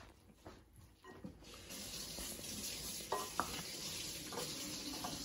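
Wooden spoon stirring wet bread dough in a glass mixing bowl, with two sharp clicks a little past halfway. A steady hiss sets in about a second and a half in.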